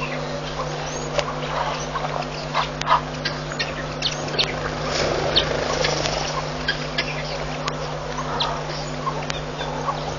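Wild birds chirping and calling in many short, overlapping notes, with a few sharp clicks, over a steady low electrical hum.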